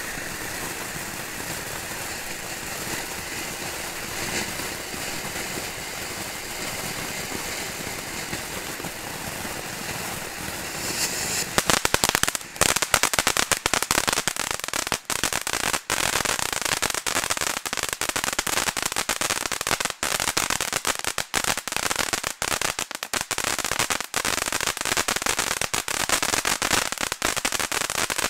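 Star of Joy firework fountain spraying sparks with a steady hiss; about eleven seconds in, it switches to loud, dense crackling that keeps going.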